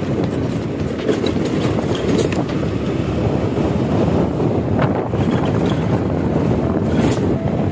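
Wind buffeting the microphone on a moving motorcycle, over the steady noise of the bike running along the road.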